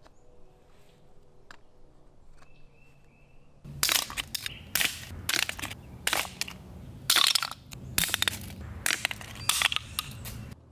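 A claw hammer repeatedly smashing 3D-printed plastic test bars against a rock in a strength test, with the printed parts cracking and breaking. The blows start about four seconds in and come as a fast, uneven series of sharp impacts, about two a second.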